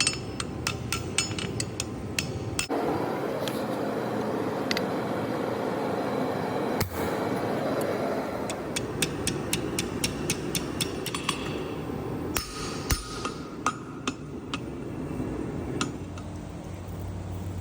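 Hammer blows on hot steel while forging tongs: runs of quick, ringing strikes, with a few seconds of steady noise between them in the first half.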